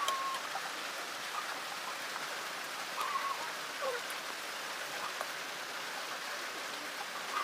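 Fritters deep-frying in hot oil in an iron kadai, the oil sizzling steadily.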